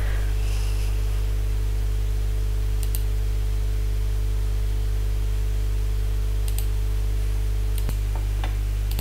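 Steady low electrical hum picked up by the recording microphone, with a few faint clicks scattered through it.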